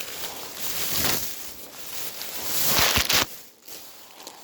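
Takeout food packaging rustling and crinkling as it is handled, with a louder rustle about three seconds in.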